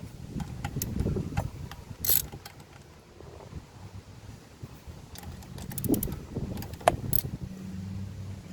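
Ratchet with an 8mm socket clicking and metal tools clinking while the oil filter cover bolts are undone, in scattered clicks with a brighter clink about two seconds in and a quick run of ticks around six seconds. Wind rumbles on the microphone underneath.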